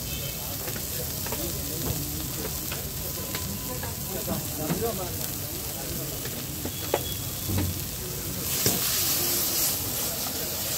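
Oil with chopped garlic and green chillies sizzling steadily in a hot wok over a gas burner, with a few sharp clinks. About eight and a half seconds in, the wok flares into a much louder rush of hissing and sizzling as a thick cloud of steam rises from it.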